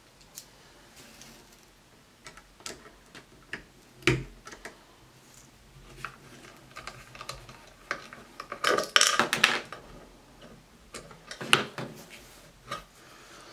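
Scattered small metallic clicks and taps of hand tools working the one-way anti-tamper screws out of a Crosman 2250 air rifle. There is a dense clatter about nine seconds in and a sharp knock a couple of seconds later.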